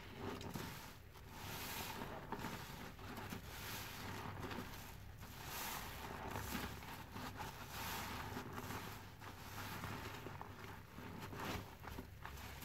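A sponge soaked in detergent foam, squeezed and kneaded in rubber-gloved hands. It gives wet, squelching foam-and-water sounds, swelling with each squeeze about once a second.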